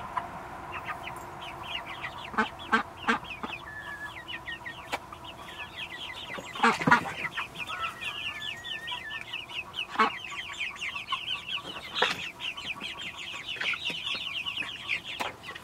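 Young chickens peeping continually in quick, high, falling calls. A few scattered knocks break in, the loudest about seven seconds in.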